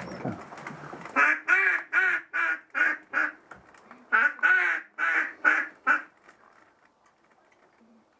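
Loud mallard-style quacking: a quick run of about six quacks, a short pause, then about five more, stopping about six seconds in.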